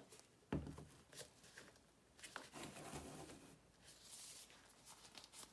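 A plastic gallon jug of epoxy hardener set down on a plastic-sheeted table with a single knock about half a second in, followed by faint handling noises.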